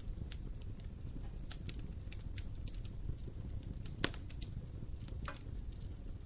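Wood fire in an open fireplace crackling: irregular sharp clicks and pops from the burning logs, the strongest about four seconds in, over a low steady rumble of the flames.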